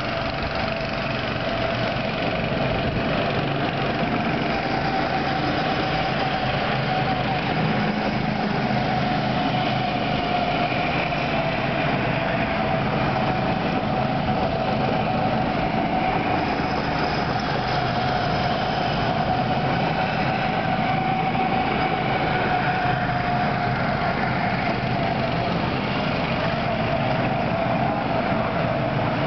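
Go-kart engines running steadily as the karts circle the track, with one engine tone whose pitch drifts slightly up and down.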